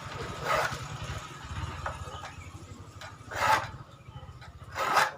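A hand file rasping across a handsaw's teeth in three short strokes, about a second in, past three seconds and near the end: sharpening a dull saw. A steady low hum runs underneath.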